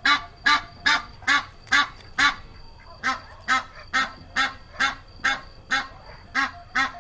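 Goose honking in a steady series of short calls, about two or three a second.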